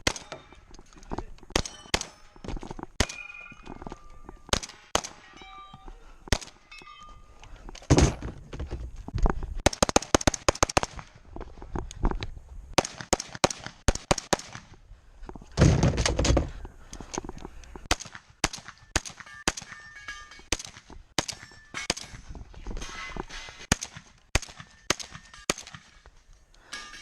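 Gunfire during a timed three-gun stage run: irregular strings of rapid shots separated by short pauses, the loudest clusters about 8, 10 and 16 seconds in.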